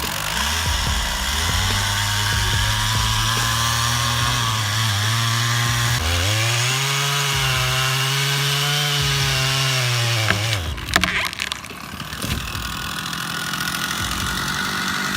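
Two-stroke chainsaw running and cutting wood, its engine note rising about six seconds in and holding, then dropping away before eleven seconds with a few sharp knocks. A quieter steady engine sound carries on after that.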